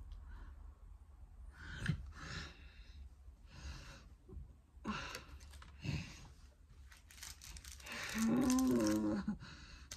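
A person's audible breaths and sighs. Near the end a wordless hum comes in over the rustle of a sticker packet being handled.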